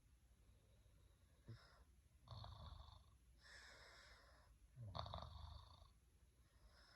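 A sleeping person snoring faintly, a slow run of snores and breaths in and out.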